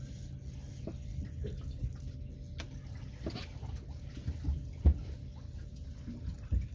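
Water lapping and splashing against a boat's hull over a low rumble, with a few sharp knocks, the loudest about five seconds in.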